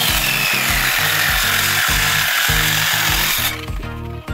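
Handheld electric circular saw cutting into a wooden beam, a loud steady noise with a whine that falls in pitch, stopping about three and a half seconds in. Background music with a steady beat plays throughout.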